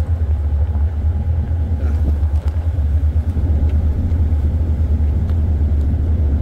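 Steady low rumble of a ship under way: the vessel's engine droning.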